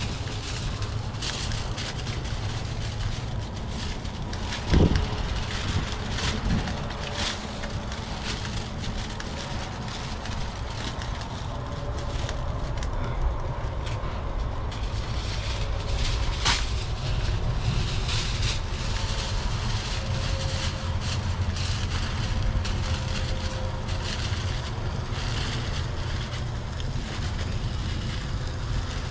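Aluminum foil crinkling and rustling as sheets are torn off and draped over a pan, over a steady low rumble of wind and a propane outdoor burner running. There is a single sharp thump about five seconds in.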